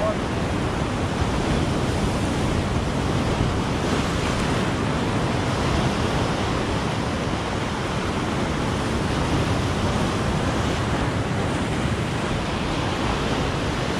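Steady surf of sea waves breaking and washing over shoreline rocks.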